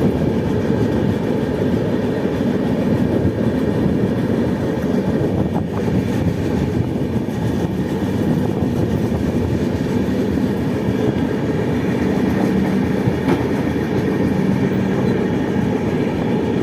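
Passenger train running steadily along the track: a continuous low rumble of the wheels on the rails.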